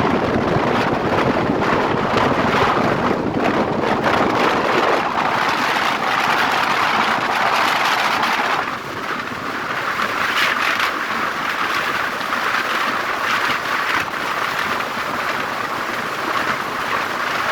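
Wind rushing over the microphone and road noise from a moving vehicle, a steady hiss and rumble; the low rumble thins out twice, about five seconds and about nine seconds in.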